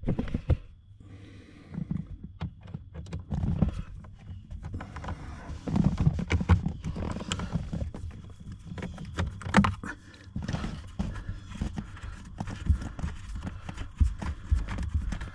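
Irregular clicks and knocks of a hand tool working star-head bolts out from under a car's lower dashboard panel.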